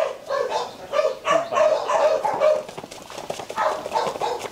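Rottweiler puppy yapping: quick runs of short, high-pitched yips, with a brief lull about three seconds in.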